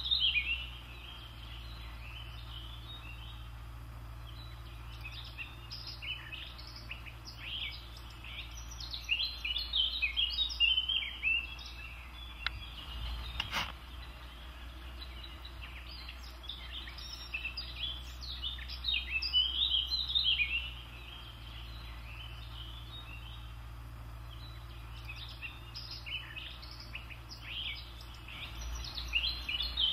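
A songbird singing in short phrases of quick chirps and trills, each a few seconds long with pauses of several seconds between them, over a steady low hum. A single sharp click comes a little before halfway.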